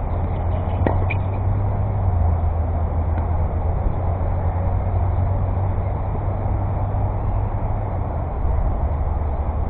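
Steady low rumble with one sharp tennis ball strike off a racket about a second in.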